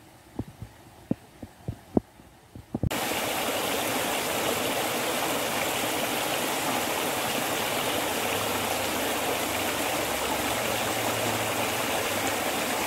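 A few short, soft low thumps over a faint background, then from about three seconds in the steady rush of stream water spilling over a small ledge into a pool.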